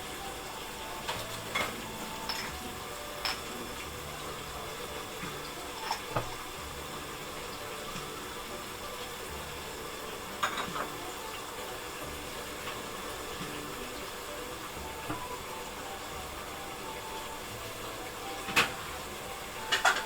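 Tomato and green-pepper sauce sizzling steadily in a pan, with a handful of short, sharp knocks and clinks scattered through it.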